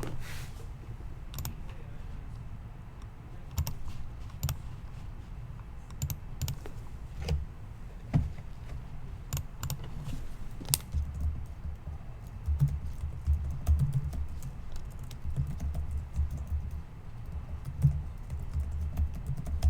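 Clicking and tapping on a computer keyboard and mouse: irregular sharp clicks, a few at a time, with soft low thumps of handling on the desk.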